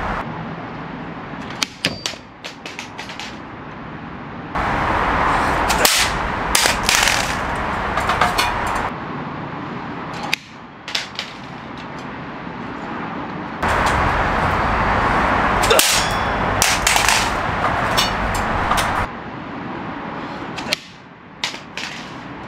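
Plastic toy gel blaster (Nerf Pro Gelfire Igniter) dropped off a ladder several times, clattering and bouncing on a concrete patio, each drop a quick cluster of hard knocks. Twice a steady rushing noise runs for several seconds, starting and stopping abruptly.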